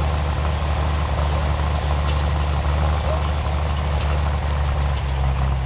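Turbocharged Fortschritt tractor's diesel engine running steadily under load as it pulls a cultivator through stubble.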